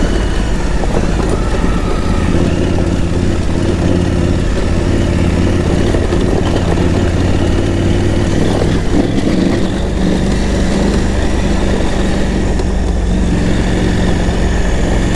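KTM 890 Adventure R motorcycle's parallel-twin engine running at a steady, moderate pace while riding, with small rises and falls in engine speed.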